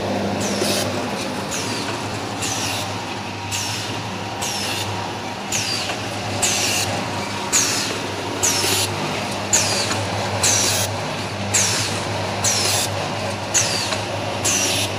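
Automatic pyramid-bag packing machine running: a steady hum under a short hiss and clack about once a second as it cycles through each bag.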